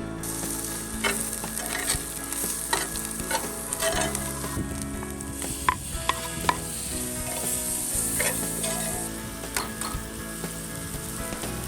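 Food sizzling and frying in a pan while it is stirred, with a utensil clicking and scraping against the pan several times. The high sizzle drops away about nine seconds in.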